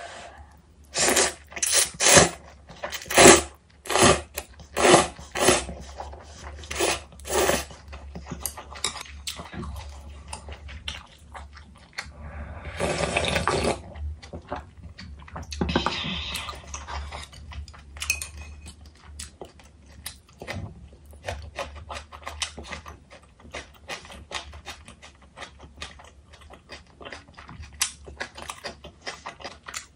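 Close-miked eating of Korean beef-bone soup with noodles: a run of about eight loud noodle slurps in the first several seconds. Around the middle comes a longer slurp of broth drunk straight from the bowl, then chewing and small wet mouth clicks.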